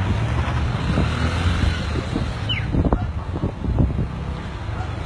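Pickup truck engines running at low speed close by, a steady low rumble mixed with wind buffeting the phone's microphone. A few short knocks come around the middle.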